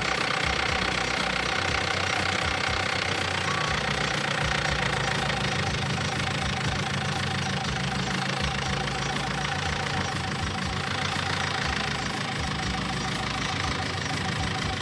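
New Holland compact tractor's diesel engine running steadily at low speed while towing a teardrop caravan.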